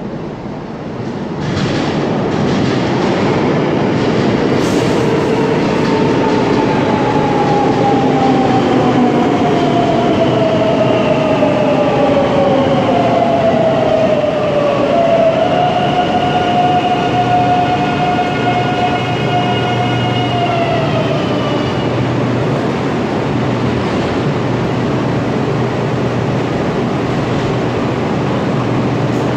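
Metro de Madrid 9000-series (9400 subseries) electric train pulling into the platform and braking to a stop. The wheels rumble loudly as it enters, and the motor whine falls steadily in pitch, then holds on one tone for several seconds before cutting off about two-thirds of the way through. After that the standing train gives a steady low hum.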